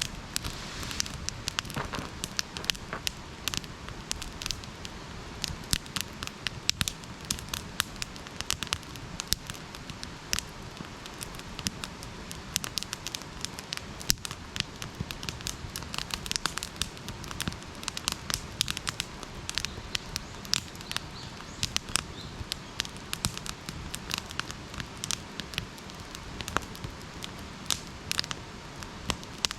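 Wood campfire burning, with frequent irregular crackles and pops over a steady low hiss.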